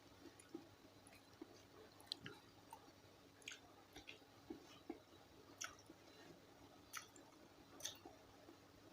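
Near silence with faint sounds of someone eating: soft chewing and a dozen or so small, scattered mouth clicks.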